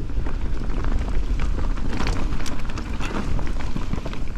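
Enduro mountain bike ridden fast down a dirt forest trail: tyres rumbling over the ground and the bike rattling with many small clicks and knocks, with wind buffeting the microphone.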